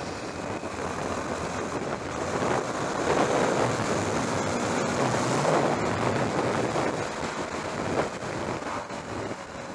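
Wind rushing over the microphone on a moving motorcycle, with the KTM 390 Duke's 373cc single-cylinder engine running under it. The rush swells a couple of seconds in and eases off again after about six seconds.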